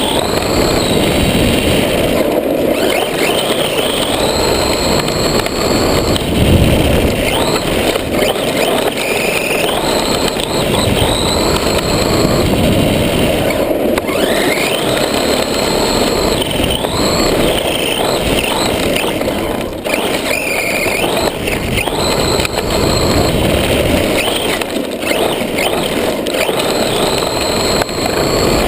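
Battery-powered Redcat Shredder XT RC monster truck driving, heard from a camera mounted on the truck: its electric motor whines in repeated rising and falling glides as the throttle is worked, over a steady rush of drivetrain and tyre noise on sand.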